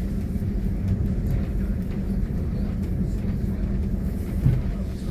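Diesel multiple unit running along the line, heard from inside its front cab: a steady low rumble of engine and wheels on rails with a steady hum. There is a brief louder bump about four and a half seconds in.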